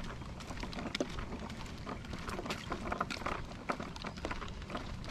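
Electric scooter riding along an asphalt road: low wind rumble on the microphone and tyre noise, with frequent small clicks and rattles.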